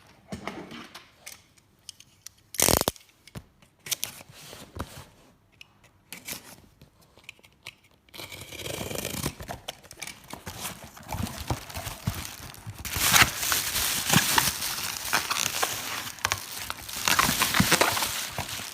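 A parcel being opened by hand: packaging crinkling and tearing. Scattered handling clicks and a sharp snap about three seconds in, then from about eight seconds on continuous tearing and crinkling, loudest in the last five seconds.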